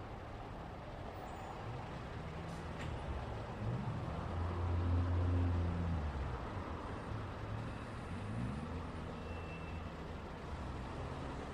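Road traffic: steady tyre and road noise, with a heavy vehicle's engine drone swelling as it passes, loudest about four to six seconds in, its engine pitch rising and falling twice.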